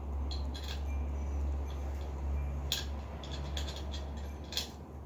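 Scattered light clicks and taps of a screwdriver and hands working at a ceiling fan's metal mounting canopy, over a low steady hum.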